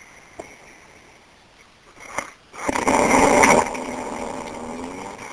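Snoring: a brief sound about two seconds in, then one loud, rough snore lasting about a second, trailing into a quieter drawn-out breath of about a second and a half.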